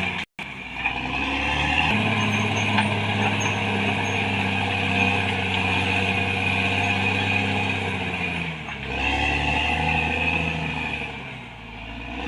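Caterpillar D6R XL bulldozer's diesel engine running steadily under work, its level and pitch stepping up about two seconds in, then easing off briefly twice in the second half before picking up again.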